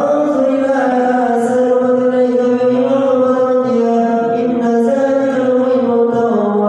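A man's voice chanting in long, held, ornamented notes that slide and waver in pitch, in a melodic Arabic religious chanting style.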